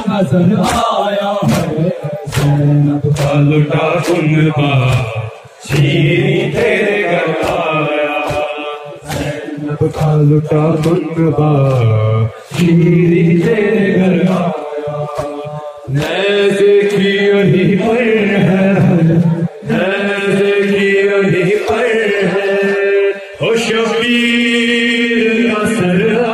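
Men chanting an Urdu noha, a Shia lament, kept in time by steady slaps about every half second, which fit chest-beating (matam).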